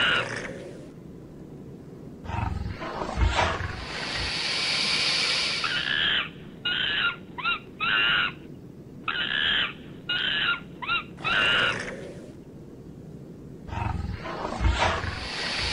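Fighting animals: volleys of short, high squealing cries, broken twice by a rough growl with thuds that gives way to a long hiss.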